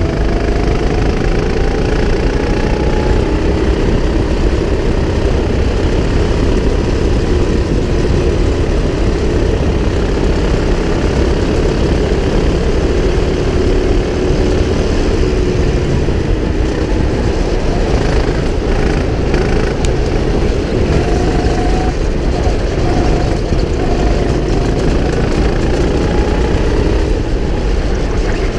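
Go-kart engine running continuously at racing speed, heard close up from on board the kart, its pitch drifting up and down with the throttle through the corners.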